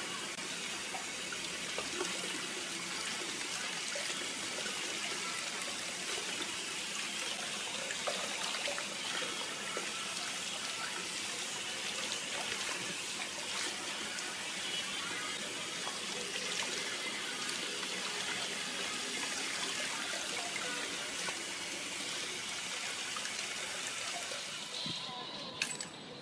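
Kitchen tap running in a steady stream, the water splashing onto a rugged tablet held under it and into the sink.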